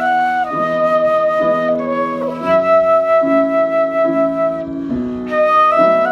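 A flute plays a slow song melody in long held notes that step up and down, over a lower accompaniment line.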